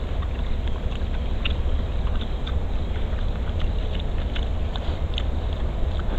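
Wild boar chewing and crunching bait, heard as scattered short, sharp clicks and crackles over a steady low rumble.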